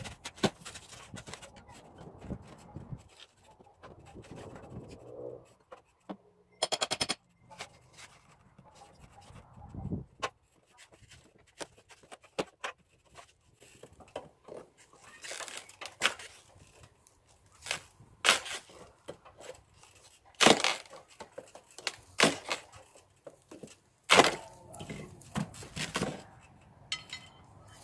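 Hand tools scraping, prying and knocking at an old, rotten wooden window frame: irregular sharp cracks and scrapes, with a quick rattling run of clicks about seven seconds in.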